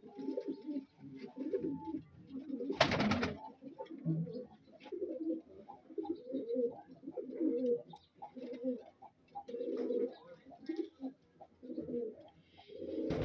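A loft full of domestic pigeons cooing, with low, overlapping, warbling coos throughout. A brief loud rustling burst comes about three seconds in.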